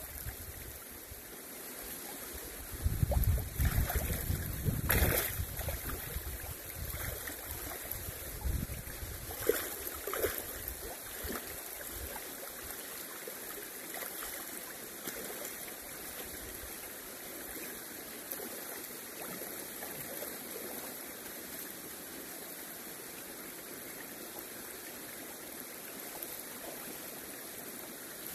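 Shallow river flowing over stones, a steady rushing and rippling. Between about three and ten seconds in there are a few louder bursts of water noise close by.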